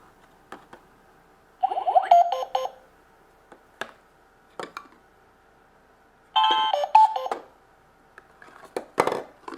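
Toy electronic cash register playing short electronic beep jingles twice, about two seconds in and again about six and a half seconds in, with sharp plastic clicks and taps between as toy items are scanned and handled. A louder clatter of plastic near the end.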